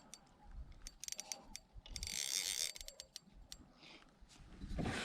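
Fishing reel clicking in short runs of quick ratchet-like clicks, with a brief rushing hiss about two seconds in and a low thump near the end.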